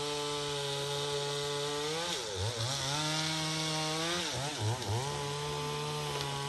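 A small engine running at a steady high pitch, its pitch dipping and wobbling briefly about two seconds in and again between four and five seconds in, as if momentarily loaded.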